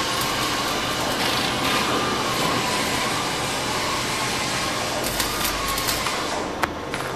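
Steady machine noise: a rushing hiss with a thin, slowly wavering whine running through it, a few crackles about five seconds in and a single sharp click near the end.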